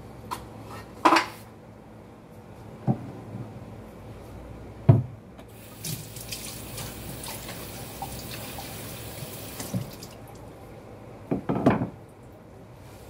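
Kitchen tap running into a sink for about four seconds, starting about six seconds in. Around it come several sharp knocks and clatters of kitchen utensils and a wooden cutting board being handled, the loudest near the start, the middle and the end.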